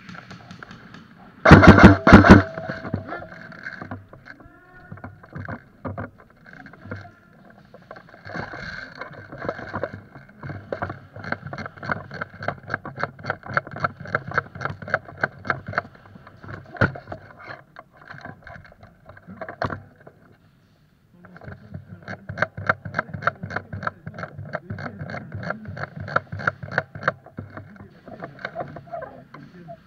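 Airsoft gun firing a short burst of very loud, sharp shots about one and a half seconds in. Then come long runs of fast, evenly spaced clicking and rattling, broken by a pause near the middle.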